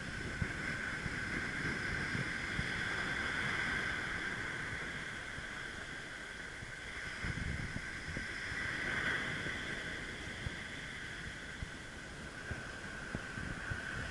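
Surf washing on a sandy beach, swelling and easing, with wind buffeting the microphone. A steady high-pitched drone runs over it.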